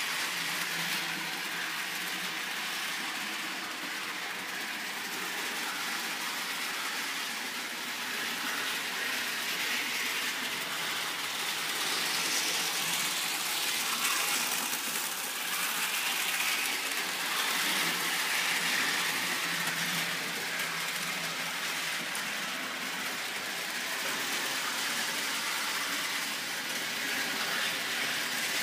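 Bachmann Donald model locomotive running at full speed around the track: the steady whirr of its small electric motor and gears, with the hiss of wheels on rail and of the coaches it pulls.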